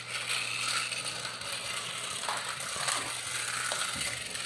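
Small battery-powered light-up toy car running along a flexible plastic track: its little motor whirring and its wheels rattling steadily over the jointed track pieces.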